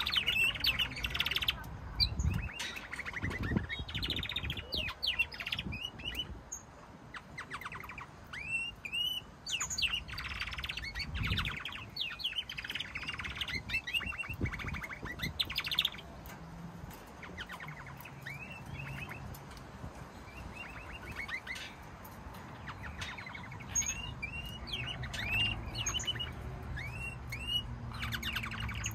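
Pet canaries singing in a cage: many short rising chirps and quick trills, busy in the first half, thinning out for a while in the middle, then picking up again near the end.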